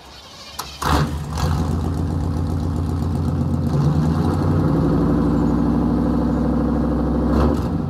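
Chevrolet 350 small-block V8 of a 1993 OBS pickup, exhaust run with no catalytic converters and no mufflers, fires up about a second in and settles into a steady, loud idle.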